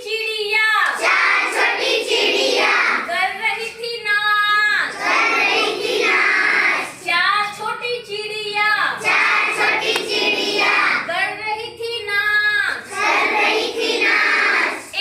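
Young children singing a Hindi counting rhyme together in a rhythmic chant, phrase after phrase with brief breaks between lines.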